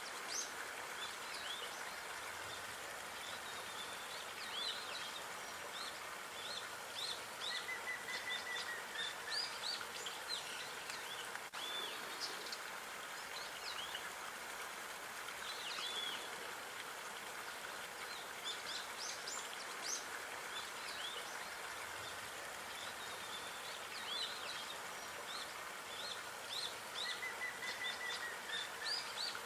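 Outdoor ambience of small birds chirping and singing in short high calls, over a steady even hiss. A short even trill comes twice, about eight seconds in and near the end.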